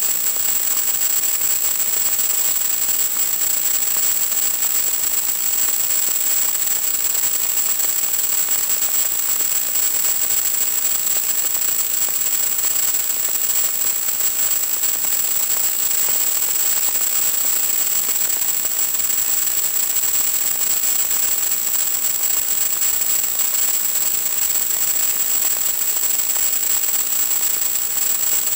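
Steady static hiss with a constant thin high whine: the empty audio channel of an analog FPV video link, picked up through the video receiver.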